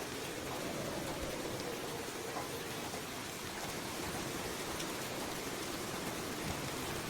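Light rain falling steadily, with a few individual drops ticking now and then.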